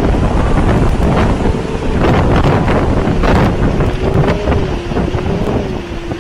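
Hurricane wind blowing hard and buffeting the microphone in gusts, with a faint wavering whistle running through it.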